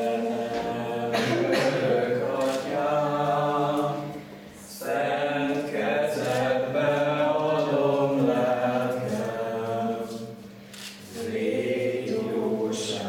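Voices singing unaccompanied, a slow tune in long held phrases with two short breaks for breath, about four and ten seconds in.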